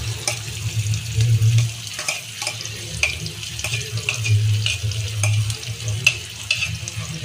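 Sliced onions going into hot oil with garlic and green chillies, sizzling, while a metal spoon scrapes and clinks against a steel plate in a run of sharp clicks. A low hum runs underneath.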